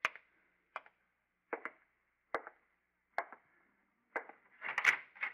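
Old-time radio drama sound effect: a slow, evenly spaced series of sharp knocks or thuds, about one every second, ending in a louder jumble of knocks near the end.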